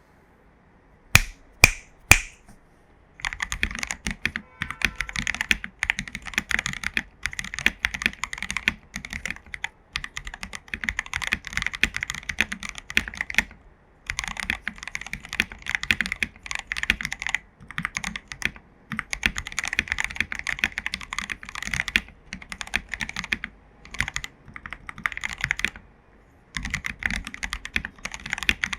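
Typing on an AKKO PC75B Plus mechanical keyboard with lubed Jelly Black linear switches and XDA-profile keycaps. Three separate loud keystrokes come about a second in, then fast continuous typing in runs of a few seconds broken by short pauses.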